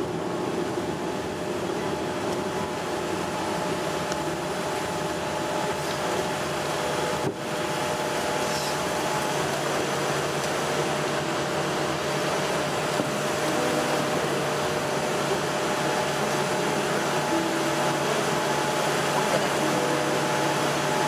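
Steady cabin noise inside a Boeing 787-10 rolling out on the runway after touchdown: an even rush of air and engine noise with a few faint steady hums.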